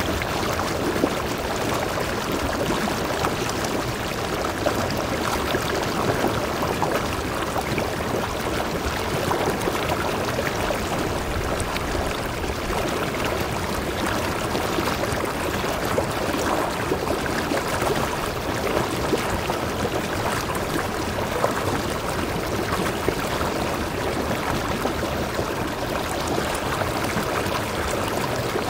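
Mountain stream cascading between boulders into a rock pool: a steady, even rush and splash of water.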